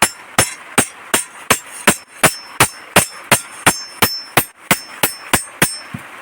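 Blacksmith's hammer striking a dao blade on an anvil in an even rhythm of about three blows a second, each with a bright metallic ring, forging the blade. The blows stop shortly before the end.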